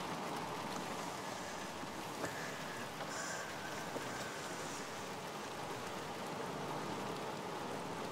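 Steady rain falling on a car's roof and windows, heard from inside the car, with two faint ticks about two and four seconds in.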